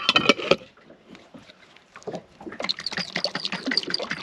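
Coconut-cream marinade being mixed in a jar: liquid sloshing with small clicks and knocks, a brief busy spell at the start, then quieter, then irregular clicking again from about halfway.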